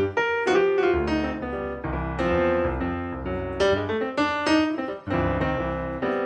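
Background piano music, notes struck one after another with chords beneath.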